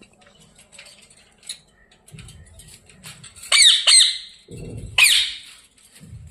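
Ringneck parakeet screeching: two harsh, loud squawks with a falling pitch about halfway through, then a third a second later, amid a squabble between the pet parrots. Fainter low thuds of scuffling come between the calls.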